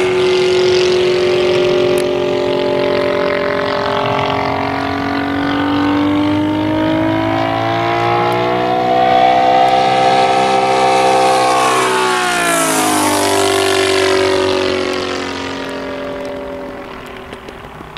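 Kolm IL 155 engine with a muffler, driving a three-blade propeller on a large RC Spitfire model in flight. Its steady droning note rises in pitch as the plane approaches, drops sharply as it passes about twelve seconds in, then fades away.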